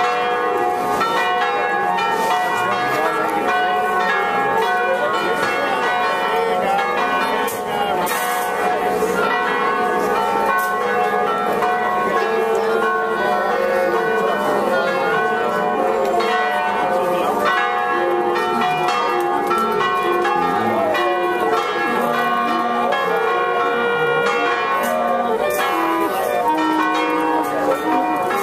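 Church bells ringing a long, continuous peal, several bells of different pitches struck one after another so their tones overlap and keep sounding. Voices chatter faintly underneath.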